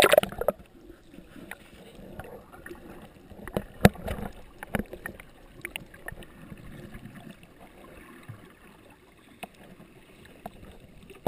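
Underwater sound picked up by a submerged action camera: a dull, muffled wash of water with scattered clicks and knocks. It opens with a splash as the camera goes under.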